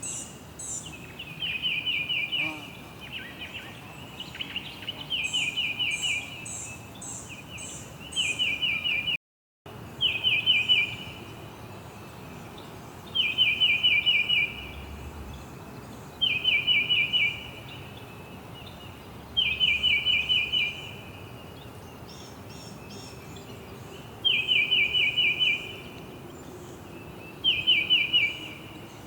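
Songbird singing: a trill of rapid notes about a second long, repeated every two to three seconds, over fainter, higher chirping and a steady background hiss. The sound drops out briefly about nine seconds in.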